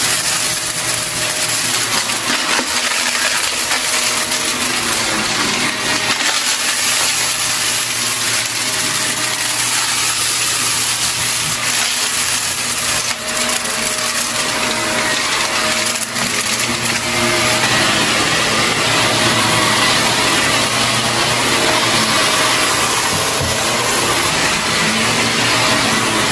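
Shark upright vacuum cleaner running steadily over carpet, with small clicks and crackles as balloon scraps and small pellets are sucked up into the canister.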